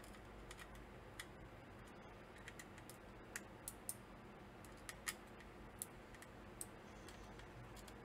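Faint, irregular small clicks and taps, about a dozen in all, as the mechanical keyboard calculator kit's acrylic case and its small screws and parts are handled during assembly.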